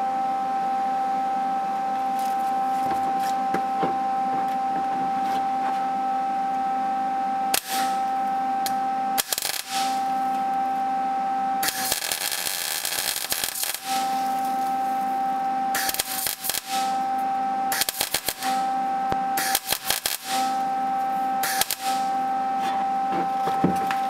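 MIG welder arc crackling in about seven separate bursts, starting about a third of the way in. The longest lasts about two seconds near the middle, while a blob of steel weld is built up on a snapped steel bolt stub. A steady high hum runs underneath and drops out while the arc burns.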